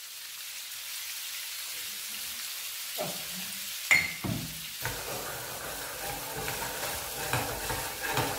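Whole prawns sizzling steadily in oil in a frying pan on a gas hob. About four seconds in there is a sharp knock, and from about five seconds the pan is shaken on the burner so the prawns turn over and the sizzle grows louder and busier.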